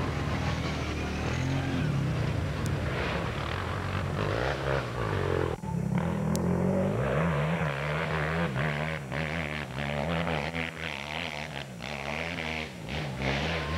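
Off-road dirt bike engines revving, the pitch repeatedly rising and falling as the throttle is worked.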